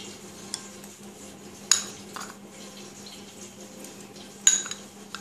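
Steel spoon clinking against a glass bowl while a wet spice paste is stirred and salt is added: a few sharp clinks, the loudest one about two seconds in and another near the end.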